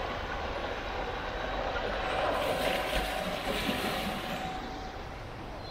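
Narrowboat engine running while water rushes and churns between the hull and the concrete canal bank. The rushing swells about halfway through, then eases.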